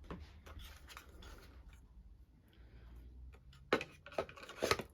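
Light clicks and taps of hard plastic hardware being handled, with a few sharper clacks near the end.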